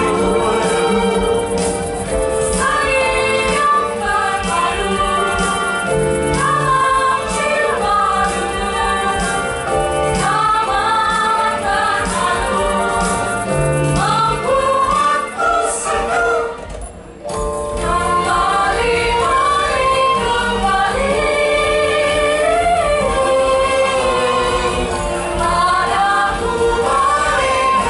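Mixed choir of women and men singing into handheld microphones over a steady beat. The sound dips briefly about seventeen seconds in.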